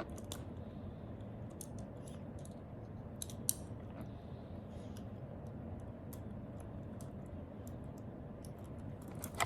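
Steel handcuffs being handled and worked, giving scattered small metallic clicks, the sharpest about three and a half seconds in, over a steady low background noise.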